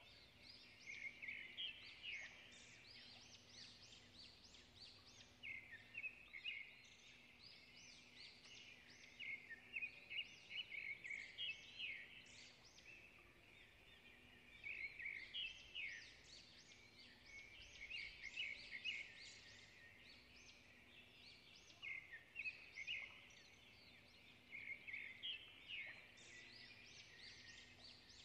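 Faint twittering of small birds: clusters of rapid, high chirps coming in bursts with short lulls between.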